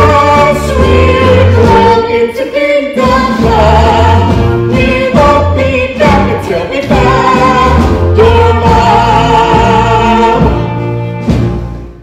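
A musical-theatre ensemble singing a song together in chorus over instrumental accompaniment with a steady bass line. The sound drops away near the end.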